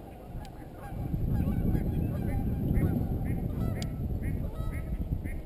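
A bird honking over and over, about two short calls a second, starting about two seconds in, over a steady low rumble.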